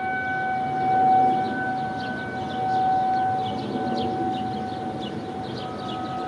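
Federal Sign and Signal Thunderbolt 1000T blower-driven outdoor warning siren sounding a steady tone, its loudness swelling and fading as the rotating horn turns.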